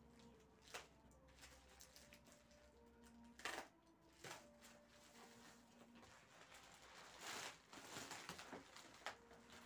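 Near silence with a few light knocks, the loudest about three and a half seconds in, and a short rustle around seven to eight seconds: small handling sounds.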